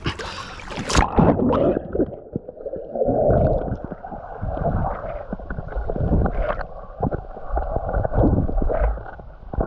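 Pool water splashing as a swimmer ducks under. About a second in the sound turns muffled, heard from underwater: uneven gurgling, bubbling and low rumbling from the swimmer moving through the water.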